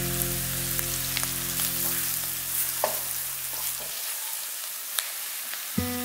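Diced aromatics and flour frying in oil in a wok, a steady sizzle, with a wooden spatula stirring and scraping through them. A few sharp ticks where the spatula knocks the pan.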